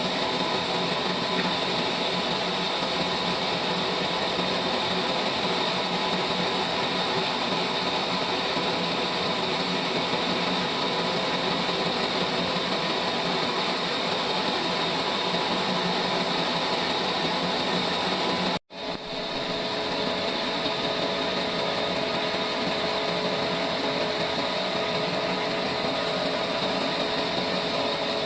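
Trolley sawmill's saw running steadily: a dense mechanical noise with steady high tones. It cuts out abruptly for an instant about two-thirds through, then carries on unchanged.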